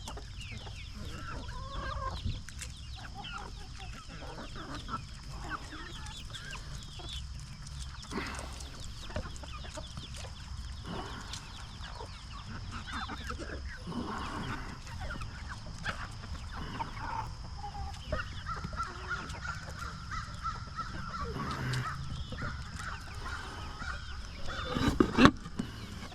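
A flock of chickens clucking and peeping, with chicks among them, as they peck at kitchen scraps. Short chirps and clucks come continually, over a steady thin high tone. A couple of loud sudden sounds stand out near the end.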